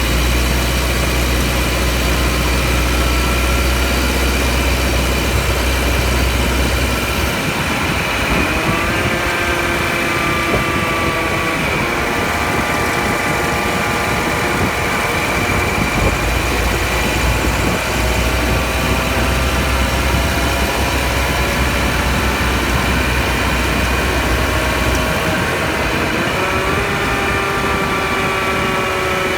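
Grinding drone from the right front axle where it enters the transmission of a 2013 Subaru Outback while driving: several steady tones that rise in pitch about eight seconds in and again near the end, and sink slowly in between. The owner can't place what the noise means.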